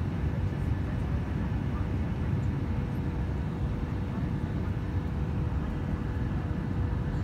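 Jet airliner cabin noise on final approach, heard from a window seat over the wing: a steady roar of engines and rushing air with a faint steady tone underneath.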